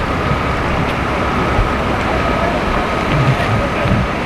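Steady machinery noise: a low rumble with a faint high whine held throughout.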